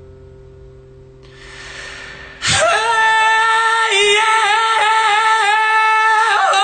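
An acoustic guitar chord dies away, then about two and a half seconds in a high voice comes in loudly, holding a long wordless sung note with a slight vibrato.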